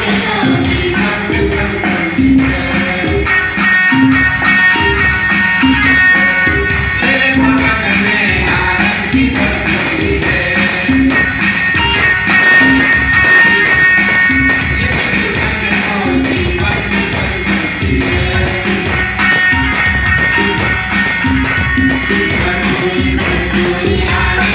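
Live devotional song played on electronic keyboards with a steady percussive beat, a group singing along.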